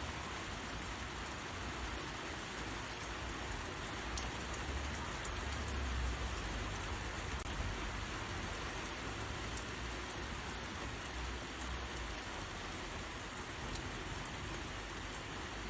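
Rain falling steadily: a dense, even hiss with scattered sharp drop ticks and a low rumble that swells a little around the middle.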